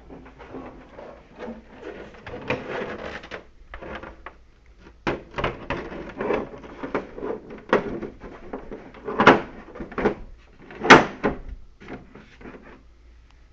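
A treadmill's motor cover being handled and set in place: irregular knocks, scrapes and rattles, with the two loudest knocks near the end.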